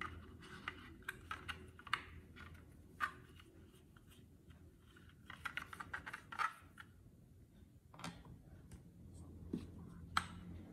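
Small clicks, taps and scrapes of a paintbrush working oil onto the inside of a hand-held 3D-printed plastic mould, with the mould being handled. A sharper click near the end as the brush goes into the oil bottle.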